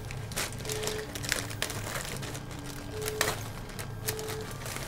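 Plastic bag crinkling and rustling as a filament spool is handled and bagged, in scattered crackles. A handful of short steady beeps at two alternating pitches, each about half a second long, sound through it.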